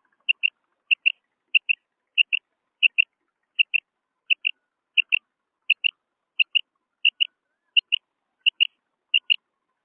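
Female quail calling: a steady series of short, high, two-note calls, about fourteen pairs repeated evenly at roughly one and a half pairs a second, stopping just before the end.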